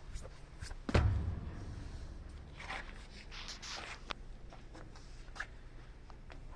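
A heavy thump about a second in, followed by scraping and a few sharp clicks, like parts or tools being handled on a workshop floor.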